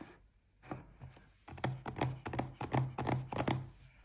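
Chiropractic Activator adjusting instrument firing again and again: a rapid series of sharp spring-loaded clicks, several a second, each with a dull thud as it strikes the body.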